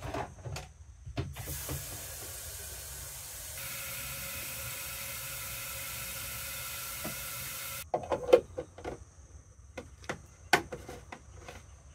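Water running from a garden hose into a container in a camper van, a steady hiss that grows louder about three and a half seconds in and cuts off suddenly near eight seconds. A few clicks and knocks of handling follow.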